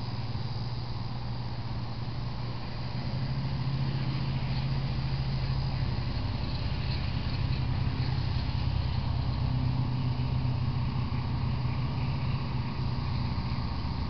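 A steady low engine hum that grows louder a few seconds in and eases off near the end.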